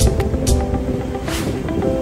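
Background music with held notes over a low rumble, with two short rushing swells of noise, one about half a second in and one near the end.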